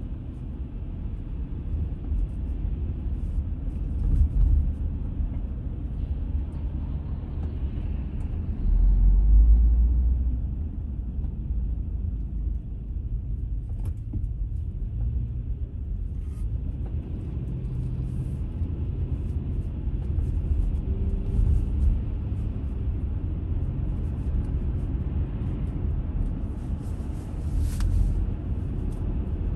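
Car driving at low speed, heard from inside the cabin: a steady low rumble of engine and tyres that swells briefly about nine seconds in.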